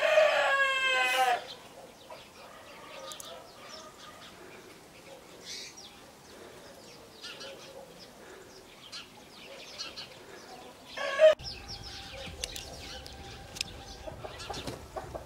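A rooster crows once, loud and long, at the very start. After that, hens cluck softly and intermittently while feeding, and a short loud squawk comes about eleven seconds in. In the last few seconds a steady low background with faint held tones comes in.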